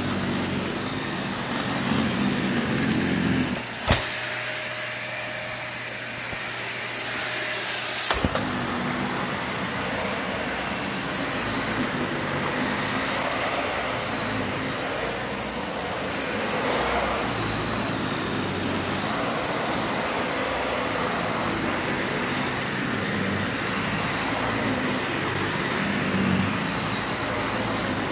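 Dyson vacuum cleaner running steadily with its brush bar on, picking up dirt. About four seconds in, a click is followed by the low rumble dropping away for about four seconds, leaving a thinner, higher running sound. It ends with another click, and the fuller sound returns.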